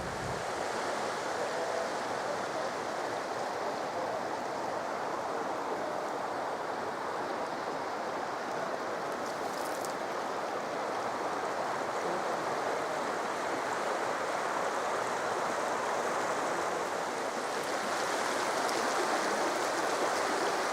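A stream or burn running steadily with an even rushing of water, growing a little louder near the end.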